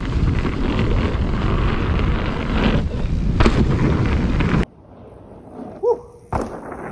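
Wind buffeting the microphone and the rumble of a mountain bike riding fast over dirt jumps. It stops abruptly about two-thirds of the way through and goes much quieter, with a brief pitched sound and a click near the end.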